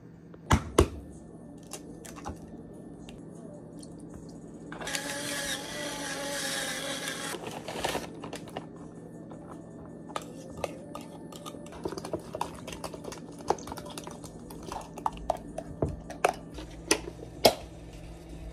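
Kitchen handling sounds of food preparation with a plastic tub and utensils. Two sharp knocks come about half a second in, then about three seconds of steady, dense whirring rattle from about five seconds in. After that comes a scatter of light taps, clicks and rustles.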